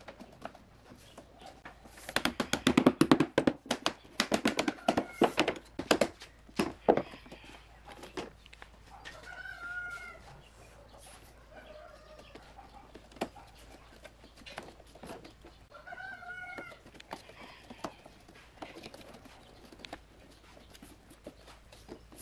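A chicken calling, drawn-out arching calls about ten seconds in and again about sixteen seconds in. Before that, from about two to seven seconds in, a dense run of loud clicks and knocks, the loudest sound here.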